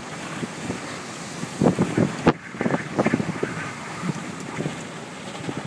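Storm wind gusting and buffeting the microphone, with a constant rush of wind and driving rain and irregular loud thumps, thickest in the middle.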